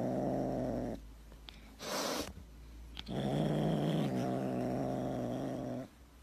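Tabby kitten growling low with a wooden stick held in its mouth and paws, guarding it. A long growl stops about a second in, a short breathy rush follows, and a second growl runs from about three seconds to near the end.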